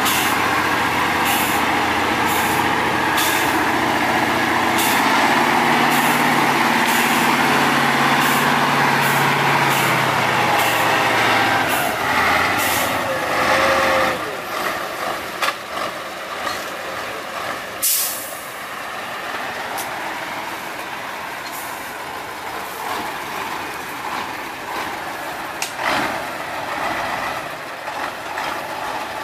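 Engine of a 6x6 Ural trial truck working under load as it crawls through mud, its pitch climbing and then falling. About halfway through the heavy engine sound drops away, leaving a quieter, noisier stretch with scattered knocks and clanks and one sharp knock.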